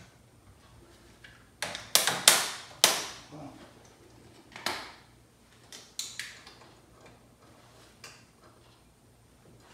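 Sharp metallic clicks and snaps of jumper clamps and wiring being handled at the engine's battery and ignition connections: a quick run of four or five about two seconds in, then scattered single ones.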